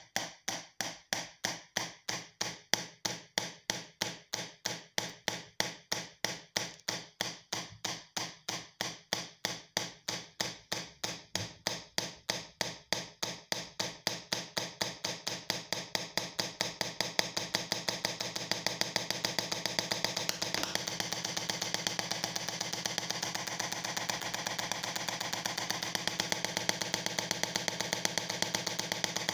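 Push-pull solid-state Tesla coil sparking from its breakout pin, pulsed by a 555-timer interrupter: sharp buzzing snaps at about three a second that speed up steadily as the interrupter frequency is raised, merging into a continuous buzz a little past halfway through.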